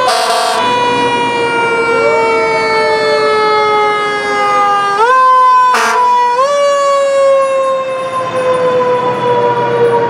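Several fire truck sirens sounding together, each pitch jumping up quickly and then sliding slowly down, over and over. Two short bursts of hiss, near the start and about six seconds in.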